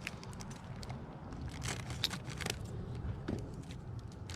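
Metal tags on a dog's collar jingling in light, irregular clinks as the husky moves about.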